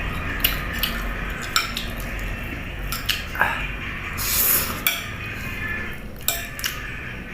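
Eating utensils clinking and scraping against a dish of rice and sardines: about eight separate clicks, with a short noisy rush about four seconds in.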